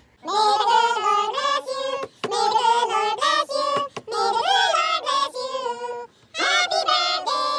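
A group of voices singing together, phrase by phrase with short breaks between phrases.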